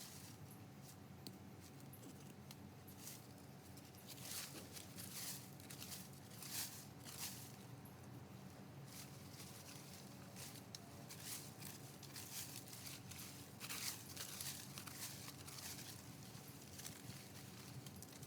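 Soil and sweet potato vines being dug through and pulled by hand: faint, irregular scraping, rustling and tearing noises.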